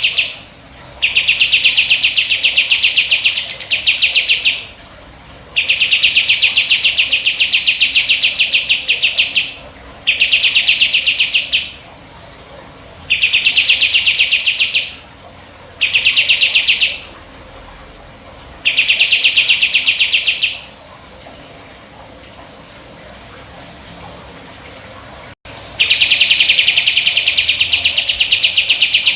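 Burung jenggot (Priangan bird) singing its 'tembakan' song: rapid, loud, high trills delivered in bursts of one to four seconds with short pauses between them, and a longer pause before the last burst.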